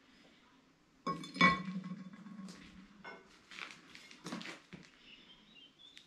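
A rusty wrought-iron hinge strap set down on a steel anvil with one loud ringing clank about a second in, then several lighter clinks as the iron pieces are shifted against each other.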